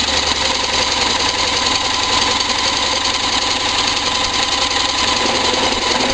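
Electric drill spinning a small vertical-shaft lawnmower engine over by its crankshaft, a loud, steady run with no change in speed. The engine is being cranked to try to run it on HHO (oxyhydrogen) gas from a dry cell.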